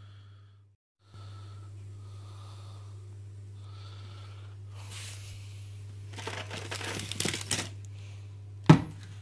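Crinkly plastic food packaging rustled and handled for a second or two about six seconds in, followed by one sharp knock near the end, the loudest sound. A steady low hum and soft close breathing run underneath.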